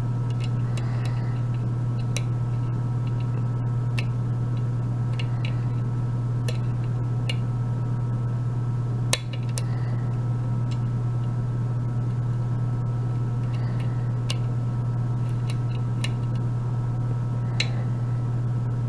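Single-pin picking of a euro lock cylinder: scattered light metallic clicks of the pick and tension wrench working the pins, with one louder click about nine seconds in, over a steady low hum.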